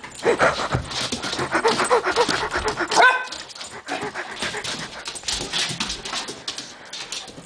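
Keeshond puppy panting as it runs about on a hardwood floor, with many quick clicks and taps throughout. It gives one short rising yip about three seconds in.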